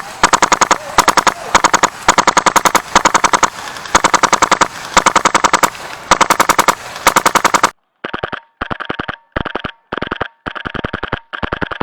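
HPA-powered airsoft AK-12 rifle (LCT LCK12 with a Polarstar F2 engine) firing short, rapid full-auto bursts one after another. A little before eight seconds the sound changes abruptly to quieter, clipped bursts with silence between them.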